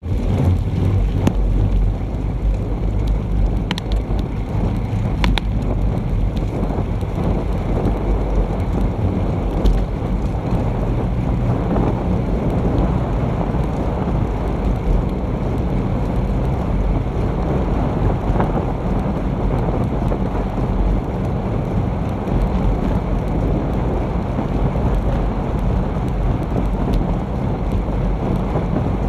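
Wind buffeting the microphone of an action camera mounted on a bicycle riding at speed, a steady low rumbling noise mixed with tyre hiss on a wet road. A few faint clicks a few seconds in.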